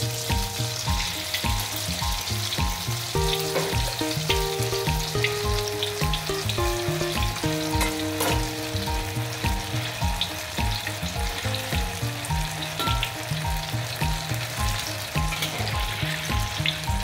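Egg and silken-tofu batter deep-frying in hot oil in a wok: a steady sizzle with small crackles. Background music with a regular beat plays underneath.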